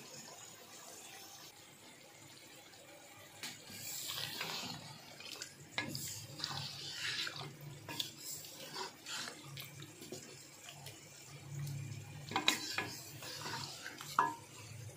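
Chicken pieces in wet masala being stirred in a steel pot with a wooden spatula: the food sizzles and bubbles, and the spatula knocks and scrapes against the pot, starting a few seconds in.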